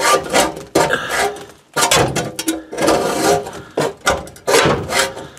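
Hand hacksaw with a Lenox blade sawing through the old kitchen sink drain strainer fitting, in repeated rasping back-and-forth strokes at an uneven pace.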